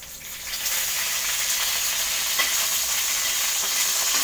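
Fresh curry leaves sizzling in hot oil with cumin and mustard seeds in a kadai. The sizzle swells within the first second to a loud steady hiss with a few pops, and a spatula stirs the pan near the end.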